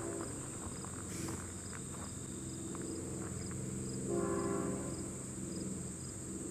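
Crickets and other insects trill steadily over the low rumble of a Union Pacific train. The locomotive's air horn fades out just after the start and sounds again for about a second, about four seconds in.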